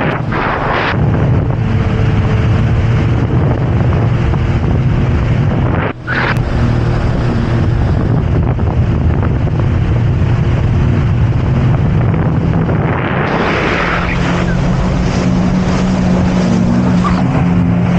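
Jet ski engine running steadily at speed, with wind buffeting the microphone.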